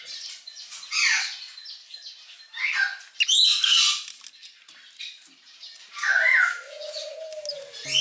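Young cockatiel giving about four raspy begging calls while it feeds from a spoon; the loudest comes about three to four seconds in.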